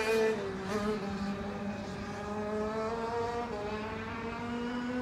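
Maxter KZ 125 cc two-stroke shifter-kart engine running at speed around the circuit. Its steady engine note dips in pitch about half a second in, then rises gradually.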